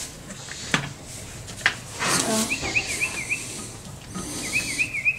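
A bird singing nearby: two quick runs of repeated up-and-down high notes, about five a second, each lasting about a second. Two sharp knocks come earlier, in the first two seconds.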